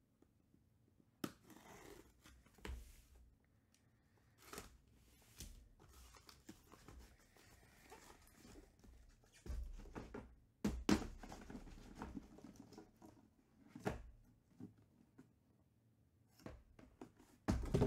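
Packing tape on a cardboard shipping case being slit and torn, the flaps pulled open, then shrink-wrapped card boxes lifted out and set down in a stack, with scattered rustles and sharp knocks, the loudest about eleven seconds in and near the end.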